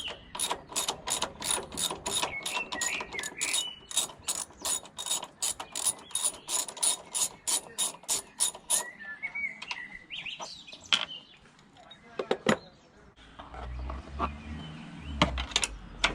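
Hand socket ratchet clicking steadily, about three clicks a second, as a strut-top mount bolt is worked loose. The clicking stops about nine seconds in, followed by a few scattered knocks and a low rumble near the end.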